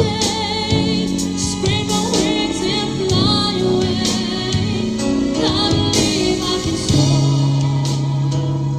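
Music: a solo singer holding long, wavering notes over a band accompaniment in a slow pop ballad.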